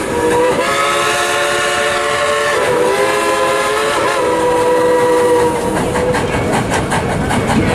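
Steam whistle of narrow-gauge steam locomotive No. 70 blowing one long chord of several notes, sagging briefly in pitch about two and a half seconds in and again near four seconds. It dies away after about five and a half seconds, leaving the rumble and clatter of the moving train.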